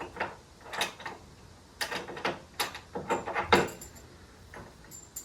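Irregular clicks, knocks and light rattles from a heavy load being handled and shifted in a cargo trailer while it is strapped down.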